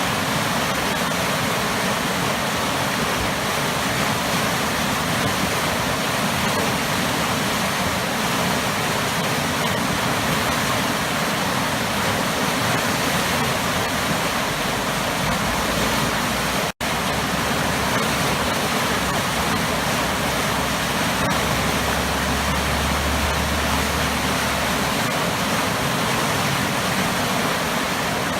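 Waterfall pouring hard into a churning pool, a steady, loud rush of water. About two-thirds of the way through, the sound cuts out for a split second and comes straight back.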